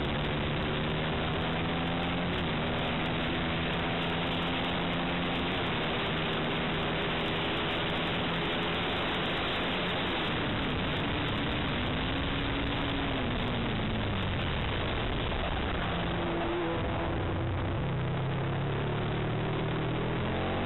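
Aprilia RSV 60° V-twin engine heard from an onboard camera at speed, under a steady rush of wind noise. Its pitch steps up several times with gear changes, dips and climbs again around the middle, and rises once more near the end.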